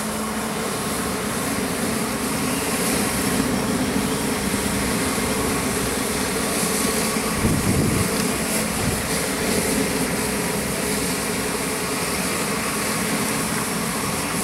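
Steady running noise of a fire engine's pump supplying a charged hose line, with water and steam hissing at the fire room's doorway. There is a brief louder low rumble about halfway through.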